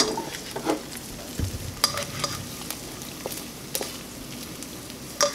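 An egg sizzling steadily in oil in a nonstick frying pan. A slotted plastic spatula scrapes and taps against the pan a few times.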